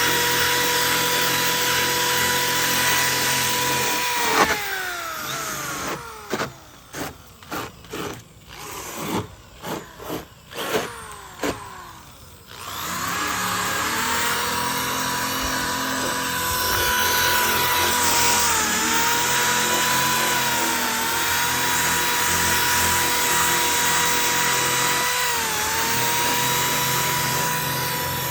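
Small electric power tool motor whining at high speed. It slows down after about four seconds and is then triggered in about eight short bursts. After that it spins back up and runs steadily, its pitch dipping briefly twice.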